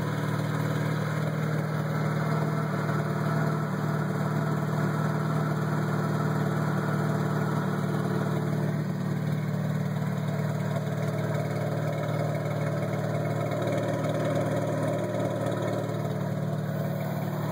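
Mazda RX-8's twin-rotor rotary engine running steadily at idle, which the owner suspects is the sound of a bad catalytic converter.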